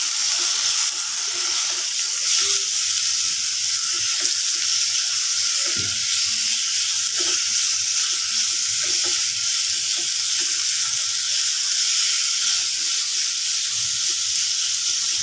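Marinated chicken pieces sizzling in a little hot oil in a non-stick kadhai, a steady hiss as the chicken gives off its juices. A silicone spatula stirs them, adding light scrapes and taps against the pan.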